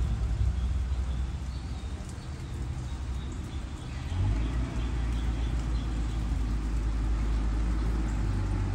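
Fire engine running, a steady low rumble that grows louder about four seconds in.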